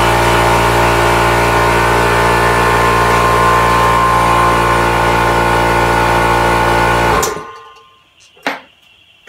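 Home-built compressed-air engine running steadily at speed with one cylinder removed, its missing cylinder's air line left open. It stops abruptly about seven seconds in, followed by two short knocks.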